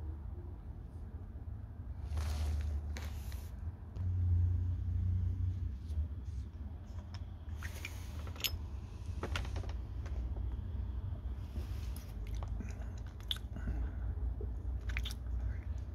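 Handling noise from a small brass lighter being turned over in the fingers: skin rubbing on the metal and a few light metallic clicks, over a low rumble of hands on the phone's microphone.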